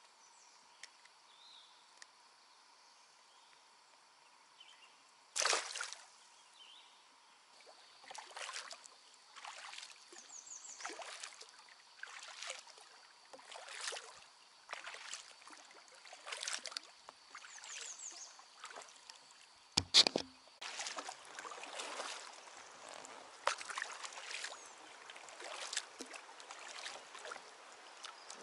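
Kayak paddle strokes splashing and dripping in the water in a steady rhythm, one about every second and a half, after a louder splash about five seconds in. About twenty seconds in comes a single sharp knock.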